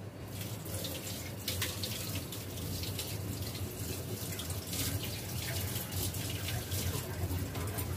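Kitchen tap running into a steel sink while a steel dish is rinsed under it, a steady splashing with a few faint ticks.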